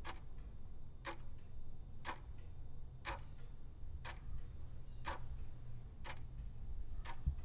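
Clock-tick sound effect counting off the seconds of a countdown timer: one sharp tick a second, eight in all, over a low steady hum.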